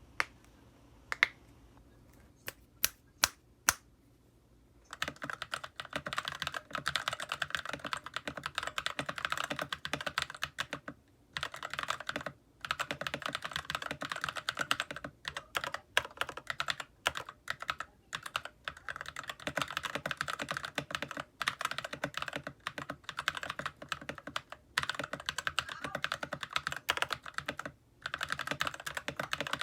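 Typing on an E-YOOSO K620 mechanical keyboard with Akko CS Matcha Green linear switches and cherry-style keycaps. First a handful of single key presses about a second in, then fast continuous typing from about five seconds, with a few brief pauses.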